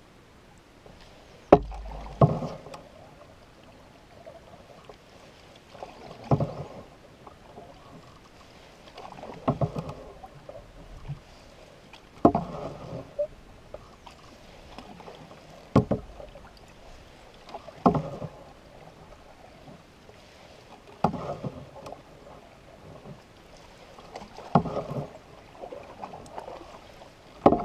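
Wooden canoe paddle strokes in calm water, about one every three seconds. Each stroke starts with a sharp knock and is followed by the swish of the blade pulling through the water.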